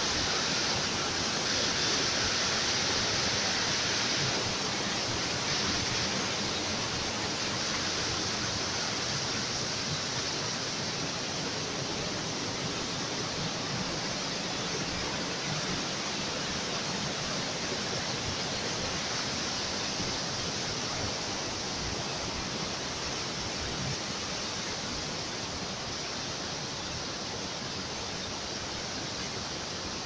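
Steady rushing of a river and waterfall, an even wash of water noise that eases slightly after the first few seconds.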